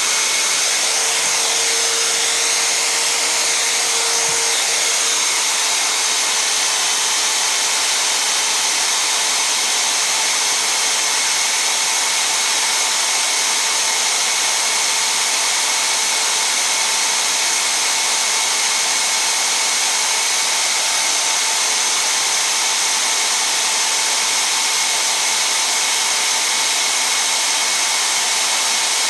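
Magnetic drill press running steadily under load, its motor a constant whine, as it drills through a thick plate.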